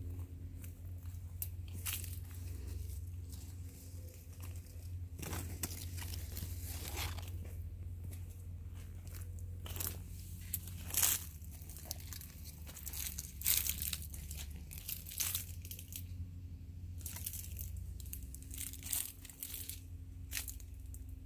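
Leaves rustling and crackling in irregular short bursts, over a steady low rumble.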